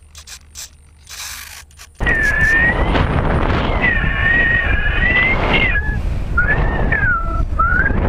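Airflow rushing over a camera mounted on a Bird of Time sailplane in flight, with a wavering whistle that bends up and down and breaks off a few times. It starts suddenly about two seconds in, after a couple of quiet seconds with a few light clicks.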